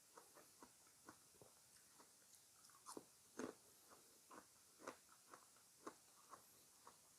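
Quiet, close-miked chewing and biting of fresh fruit: a run of short moist clicks and smacks, several a second, with a couple of louder bites just past the middle.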